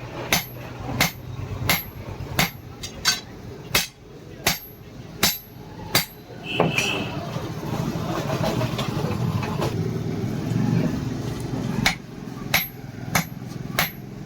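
Hand hammer striking hot leaf-spring steel on an anvil, sharp blows about one every 0.7 seconds. The hammering pauses for about five seconds in the middle, where a steadier noise fills in, then starts again near the end.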